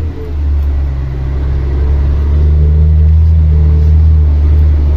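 Mercedes-Benz Axor 2644 truck's straight-six diesel engine running steadily under load, pulling a full load of granite; a brief dip right at the start, then a slight rise in engine pitch about two seconds in.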